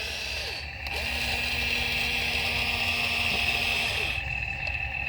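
Small electric motors of a radio-controlled toy excavator whining steadily as it works. A lower hum joins about a second in and stops near four seconds.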